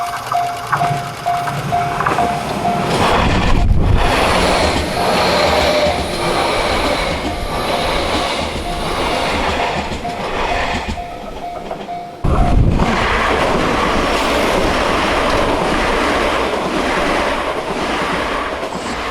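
Level crossing warning bell ringing a rapid repeating ding, about two to three strikes a second, then drowned out by a train passing over the crossing with its wheels clattering on the rails. The bell comes through faintly again before a second loud stretch of train noise starts suddenly about twelve seconds in.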